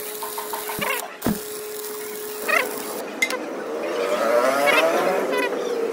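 Stick welding arc on heavy steel plate, a steady crackling sizzle, with two sharp metallic clicks in the first second and a half. In the second half, wavering tones rise and fall over the hiss.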